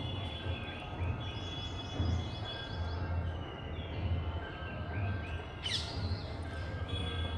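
Several birds singing and calling, with repeated short chirps and trills, over a steady low rumble. One loud, sharp call sweeps down in pitch about five and a half seconds in.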